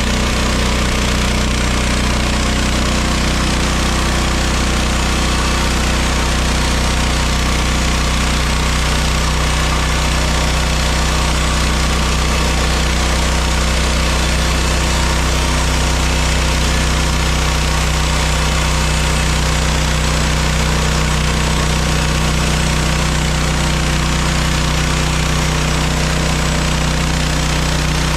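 Mechmaxx SM32 portable bandsaw mill running steadily, its gas engine and band blade going as it saws through a pine log.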